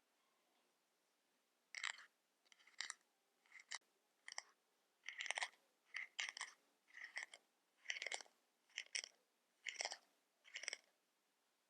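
Close-miked handling of makeup packaging: a series of about a dozen short crackly scrapes, roughly one a second.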